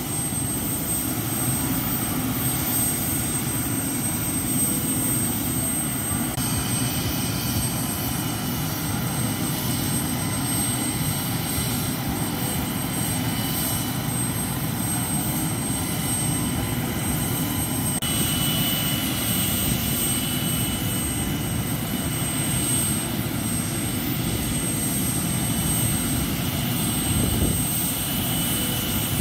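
Bell 206 JetRanger helicopter running on the pad before takeoff, its turbine engine giving a steady high whine over the low rumble of the slowly turning rotors. A second, lower whine joins about 18 seconds in.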